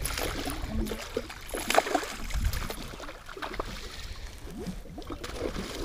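Hooked bass thrashing and splashing at the surface beside the boat: a run of short, irregular splashes, busiest and loudest in the first two seconds and thinning out after.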